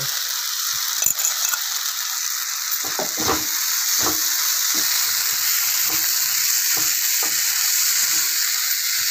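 Diced fried potatoes and spice masala sizzling in hot oil in a kadai as they are stirred together with a spatula. The spatula scrapes and knocks against the pan now and then.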